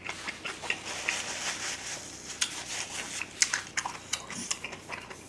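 Close-miked chewing of a mouthful of food: a run of irregular wet clicks and smacks from the mouth.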